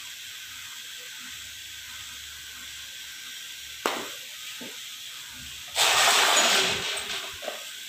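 A sharp knock about four seconds in as the cast water pump is set onto the engine block. About six seconds in comes a loud hiss, under a second long, that tails off, over a faint steady background hiss.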